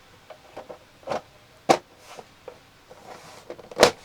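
Back cover of a small LED TV being fitted onto the set by hand: a series of light clicks and knocks, with sharper knocks about a second and a half in and near the end.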